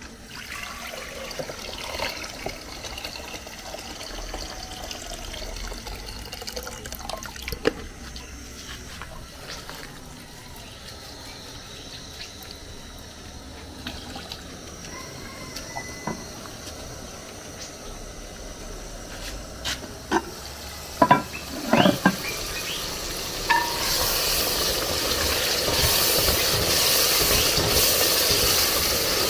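Water and liquid sounds while cooking, with a few scattered clicks and a cluster of loud sharp knocks about two-thirds of the way through. Near the end a steady hiss swells and grows louder.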